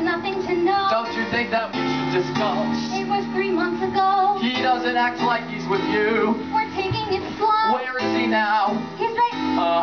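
Live musical-theatre number: young performers singing over guitar-led band accompaniment.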